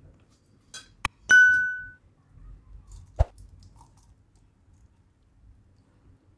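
Subscribe-button sound effect: a couple of clicks and then a bell ding that rings out for about half a second. A couple of seconds later there is a single clink, as thick chana dal is ladled onto fried pakwan in a ceramic plate.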